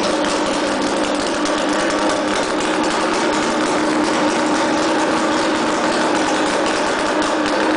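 Air-cooled three-cylinder Hirth 793 two-stroke snowmobile engine idling steadily at an even speed.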